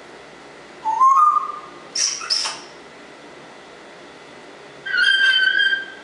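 Congo African grey parrot whistling: a short rising whistle about a second in, two short harsh notes about two seconds in, and a longer steady whistle near the end.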